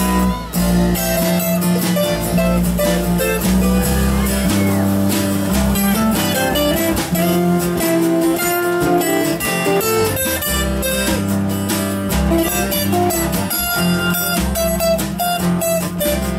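A small live band playing a light jazz instrumental: strummed acoustic guitars and an electric guitar over a moving bass line.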